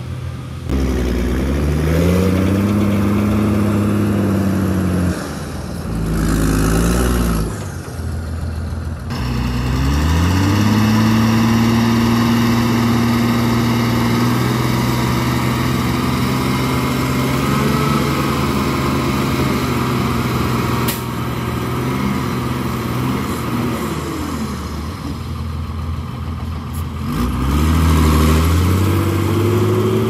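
Heavy diesel engine of an earthmoving machine working under load, revving up and down several times, with a long stretch held at high revs in the middle.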